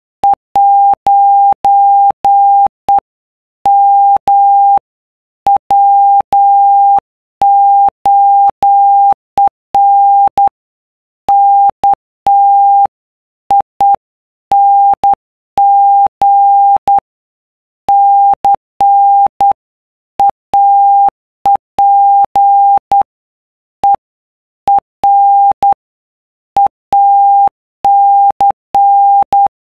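Morse code sent as a single steady beep tone keyed on and off in short dots and longer dashes, with a click at each start and stop and short gaps between letters and words. It spells out the telegram 'Shut up, I'm working Cape Race'.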